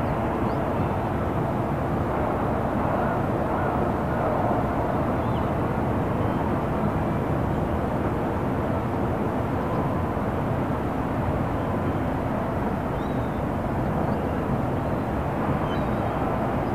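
Calm harbour ambience: a steady distant rumble of road traffic and engines, with a faint steady hum and a few faint high chirps now and then.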